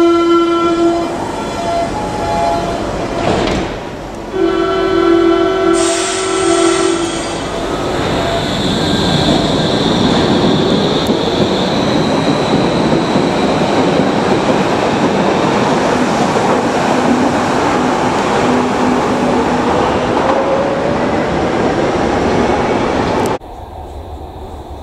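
BVG class IK U-Bahn train at an underground platform. A warning tone sounds at the start and a two-note warning tone comes about four seconds in, then the train pulls away, its traction motors whining higher and higher in pitch over the running noise of the wheels as it accelerates past. Shortly before the end the sound cuts abruptly to quieter station background.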